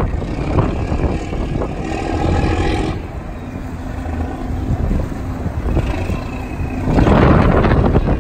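Squid-fishing boat's engine running as the boat comes alongside, steady tones over a rumble of wind on the microphone, with a louder rush near the end.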